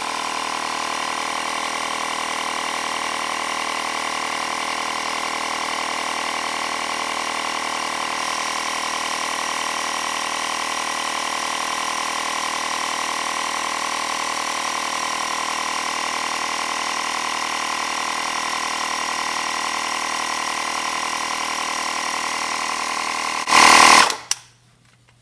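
AirHawk cordless tire inflator's compressor running steadily while pumping up a car tyre. Near the end it stops abruptly after a brief loud burst. It has not cut off by itself at its 30 PSI preset.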